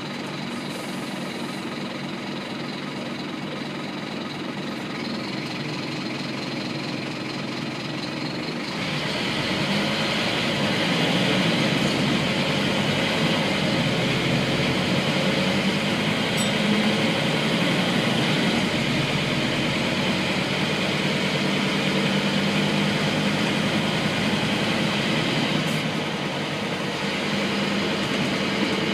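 Scania N230UB bus's five-cylinder diesel engine, heard from inside the saloon: it idles steadily while standing at a stop, then grows louder about nine seconds in as the bus pulls away, and keeps running under load as it drives.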